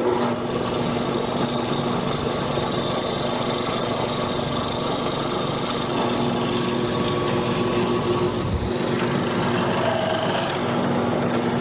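Drill press motor switched on at the start and running steadily as its hollow-chisel mortising attachment, an auger spinning inside a square chisel, is plunged into the wood to cut a square mortise.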